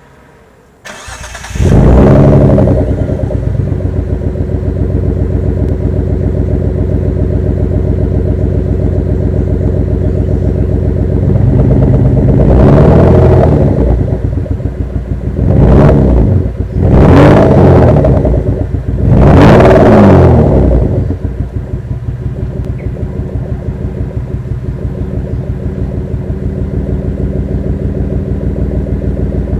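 V6 engine in a Proton Satria starting about a second in, then idling with a pulsing, uneven exhaust note and being revved up and back down four times. The owner calls it misfiring, with no power at all, and has ruled out coil, plug leads and spark plugs.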